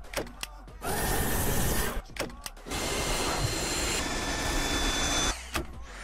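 Dyson V8 cordless vacuum's motor running with a steady whine in two stretches, cutting off between them, with a few sharp clicks in the quieter gaps.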